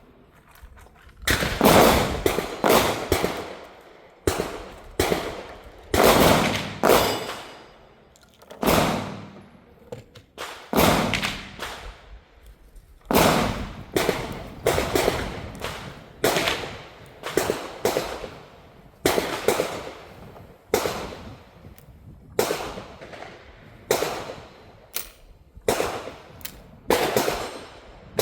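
A long, irregular string of gunshots, about twenty sharp cracks each with a short echoing tail, some coming in quick pairs and others a second or two apart.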